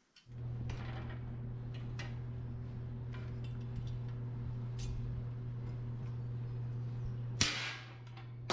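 A steady low hum starts about a quarter second in and holds level, with light metallic clicks and ticks from small fastener parts and a hand tool, and a brief louder burst of noise near the end.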